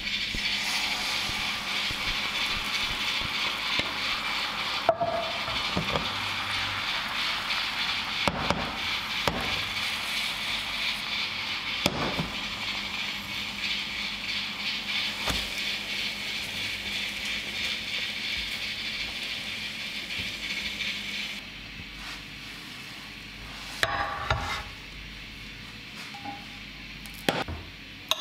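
Chive and egg pancake batter sizzling in a frying pan: a steady hiss with a few sharp knocks of a utensil against the pan. The sizzling cuts off about three quarters of the way through, followed by a couple of brief clatters.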